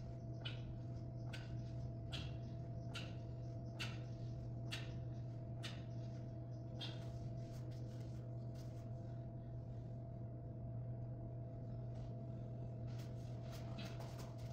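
Steady low electrical or ventilation hum in a room, with soft short rustling sounds repeating a little under once a second through the first half, in time with sit-ups on an exercise mat, and a few more near the end.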